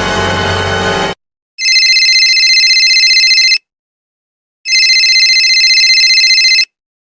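Telephone ringing twice: two trilling rings of about two seconds each, a second apart. The tail of a music clip stops about a second in, before the first ring.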